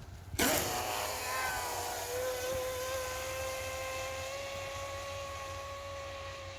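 Oxidean Dominator RC speedboat's brushless motor and propeller at full throttle, starting suddenly about half a second in with a loud burst. It settles into a steady high whine that rises slightly in pitch over the next couple of seconds, then holds while slowly fading as the boat runs away on a speed pass.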